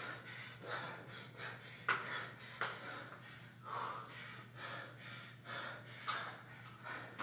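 Hard, rapid breathing and gasping of an athlete out of breath from burpees and hang power cleans, a sharp breath about every second, over a steady low hum.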